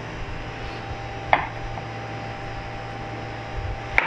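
Kitchen knife knocking twice on a wooden cutting board while slicing a tomato, once about a second in and again at the end, over a steady hum.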